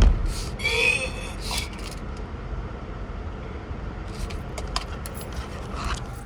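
A person coughs once, sharply, at the start, followed about a second in by a brief voiced sound. After that a steady low rumble continues with a few light clicks.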